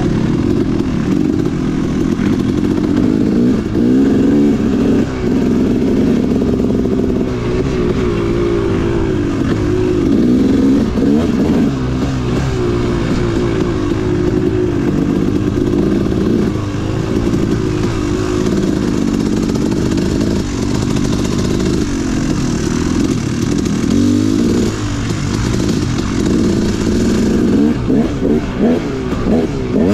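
Dirt bike engine revving up and down continuously while riding a trail, its pitch rising and falling every second or two with no pause.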